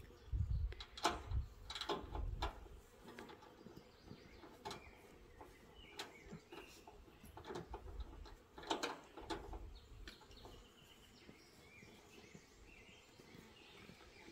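Scattered knocks and clicks from hands-on assembly work on a metal gazebo frame: a cluster in the first few seconds and another about nine seconds in. Birds chirp faintly, mostly near the end.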